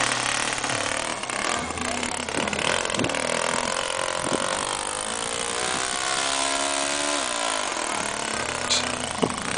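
Small RC model airplane engine running steadily, its pitch rising and then falling again in the middle as it is revved.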